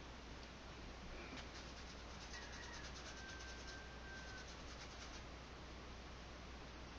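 Faint, quick rhythmic scratching of a filbert brush scrubbing thin oil paint across canvas. It starts about a second and a half in and stops about five seconds in, over a low steady hum.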